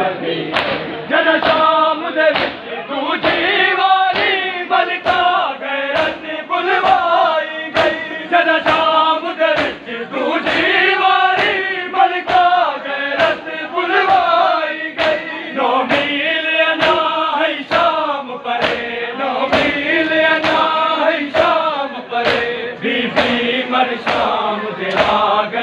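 Crowd of men chanting a noha (mourning lament) together with a lead voice, punctuated by rhythmic chest-beating (matam) in unison, about three slaps every two seconds.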